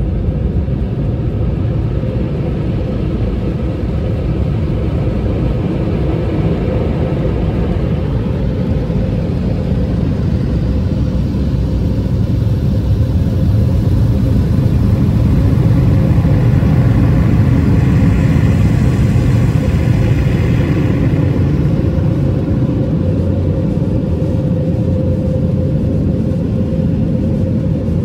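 Automatic car wash machinery running over the car, heard from inside the cabin: a loud, steady rushing rumble with a constant hum. It swells louder through the middle and eases off toward the end.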